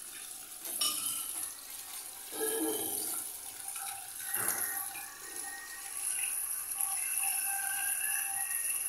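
Water poured in a steady stream from a plastic bucket into a toilet drain's floor flange, splashing and gurgling down the pipe. The drain is taking the water freely.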